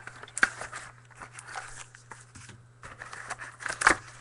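Card packaging being opened by hand: plastic wrap crinkling and tearing in irregular rustles and crackles, with a sharp louder crackle about half a second in and another near the end.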